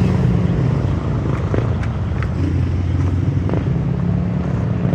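Small engine running steadily at low speed close by, with a few light clicks over it in the middle.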